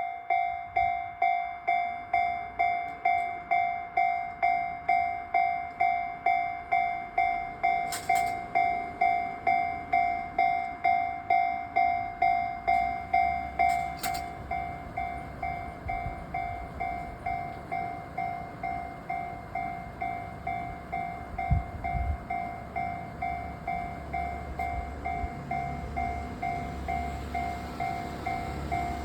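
Japanese railway level-crossing warning bell ringing, a single clanging tone struck about twice a second, dropping in loudness about halfway through. A low rumble, typical of a train nearing the crossing, builds under it in the second half.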